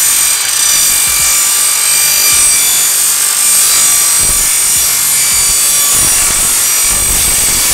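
Table saw running with its blade cutting through a metal diamond-tread plate: a steady, loud, high-pitched screech with several whining tones over the hiss of the cut.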